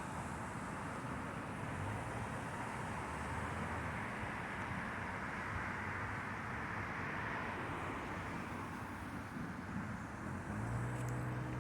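Steady thunderstorm rain hissing, with a vehicle's engine hum rising briefly a couple of seconds in and more strongly near the end as a vehicle passes.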